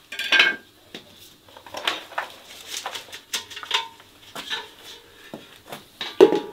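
Hard objects, metal among them, clinking and clattering as they are handled, with a loud clatter at the start. A louder knock near the end leaves a brief metallic ring.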